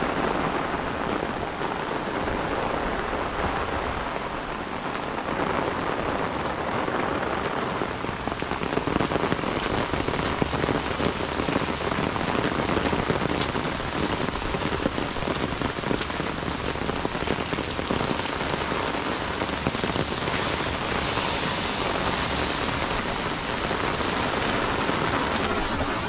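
Heavy rain pouring down steadily on a yard and a concrete driveway.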